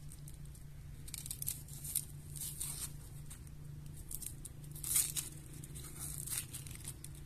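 Boiled potatoes being worked by hand for mashing: irregular scratchy, tearing sounds, loudest about five seconds in, over a steady low hum.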